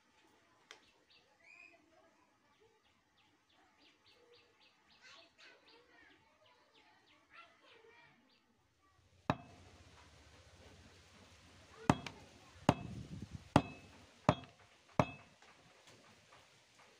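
Faint birdsong, quick repeated chirps, in the first half. Then a sharp knock, and a few seconds later five more sharp knocks a little under a second apart, each with a short ring: hard objects knocking on a wooden tabletop.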